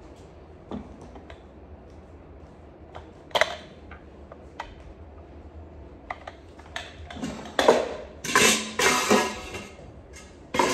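A pressure cooker and its flip-up lid being handled: scattered clicks and metal knocks, then a busier stretch of clattering and scraping from about seven seconds in, and a loud knock near the end.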